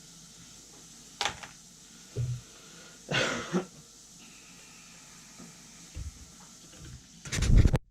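A few short breathy vocal bursts, like coughs or throat clearing, with a couple of low thumps in between; the loudest burst comes near the end.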